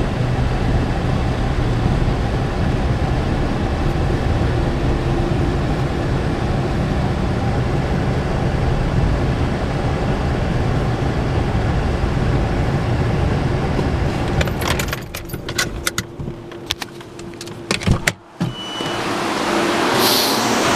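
Car engine running steadily at low speed, heard from inside the cabin, then switched off about two-thirds of the way through. A jangle of keys and a series of clicks follow, a car door shuts with a thump, and a steady hiss takes over near the end.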